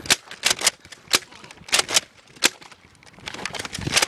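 Nerf blasters firing during a dart battle: a string of about eight sharp pops and clacks at irregular intervals, most of them in the first two and a half seconds and one more near the end.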